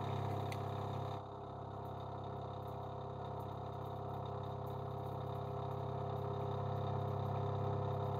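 TRAK DPM RX2 bed mill's spindle running with a 5/8 in end mill, taking a side cut in a metal part: a steady hum with a few steady tones above it. It drops slightly in level about a second in.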